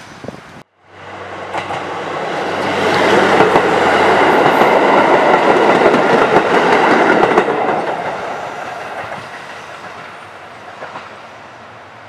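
JR Central KiYa 95 'Doctor Tokai' diesel inspection railcar passing close by, with its engine running and its wheels clattering on the rails. The sound builds to a loud peak as the train goes past, then fades as it moves away.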